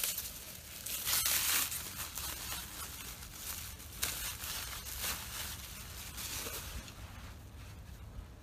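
A plastic gift bag crinkling and tearing as it is opened by hand, in several irregular bursts, loudest about a second in.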